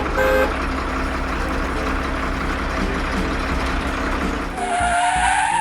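A heavy vehicle's engine running steadily. About four and a half seconds in, a higher tone comes in and rises in pitch.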